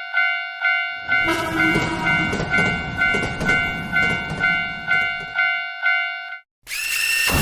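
Railroad crossing warning bell ringing steadily, about two strokes a second, while a train rumbles past with rhythmic wheel clacks from about a second in. The bell stops near the end, and a loud, noisy sound of another kind starts just after.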